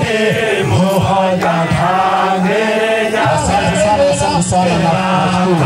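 Sukuma traditional dance song: a group of voices chanting and singing together without a break.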